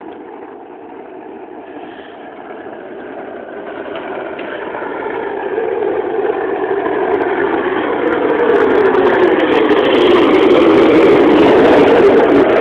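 Skateboard wheels rolling fast down an asphalt road, a jet-like roar that grows steadily louder as the board picks up speed, with short crackles joining in about halfway.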